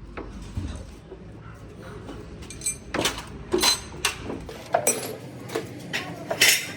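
Hard metal parts clinking and knocking together, about ten sharp strikes over the second half, some with a short metallic ring; the loudest comes near the end.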